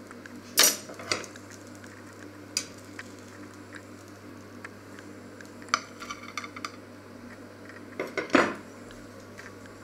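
Metal kitchen tongs clinking and knocking against a cast-iron grill pan and a china plate as a grilled sausage is lifted out and set down. A handful of separate sharp clinks, the loudest about half a second in and just after eight seconds, with a short flurry of light taps around six seconds.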